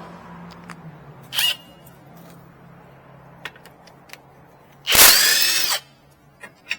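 Handheld power wrench spinning a 17 mm ball joint bolt loose counterclockwise, in one loud burst of just under a second about five seconds in, after a brief blip about a second and a half in.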